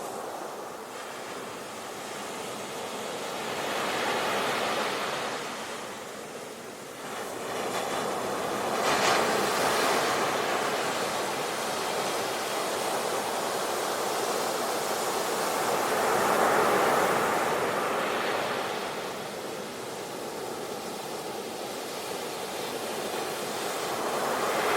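Ocean waves washing onto the shore, a steady rush of surf that swells and falls back in slow surges every several seconds.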